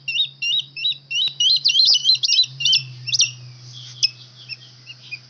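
Young eagle chicks being fed, giving rapid, high-pitched begging chirps. The calls come thick and fast for the first three seconds or so, then thin out. A faint steady low hum runs underneath.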